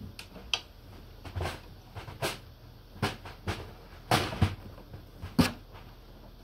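Plastic wrapping and a snug drum bag rustling and crinkling in irregular bursts, with a few sharper scuffs, as a snare drum is tugged out of the bag.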